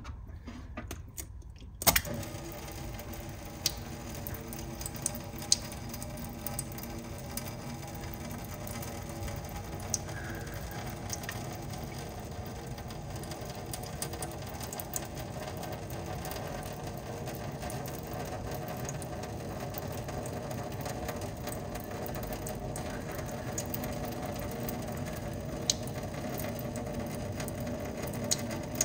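Thin streams of water from two small outlet tubes falling into a stainless steel sink, starting after a sharp click about two seconds in and then running steadily, with a few small ticks.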